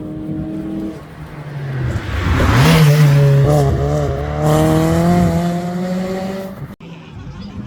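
Rally car approaching and passing close at speed, engine running hard, with a rush of noise as it goes by. The engine note then holds and wavers as the car carries on, until the sound cuts off abruptly near the end.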